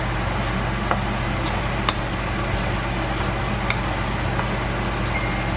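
Shrimp fried rice sizzling in a wok as it is stirred and tossed, the spatula now and then ticking and scraping against the pan, over a steady low hum.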